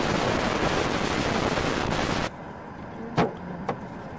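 Loud, even rushing noise of wind and road noise inside a car driving at speed, cutting off suddenly a little past two seconds in. After it comes a quieter background with two sharp clicks about half a second apart.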